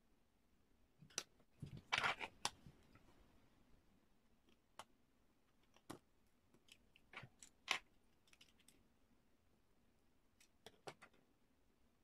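Faint, scattered clicks, taps and short scrapes of small repair tools (precision screwdrivers, tweezers and a plastic pry tool) being worked on an opened iPhone 5 and picked up from and set down on a table. A brief cluster comes about two seconds in, with more single clicks later.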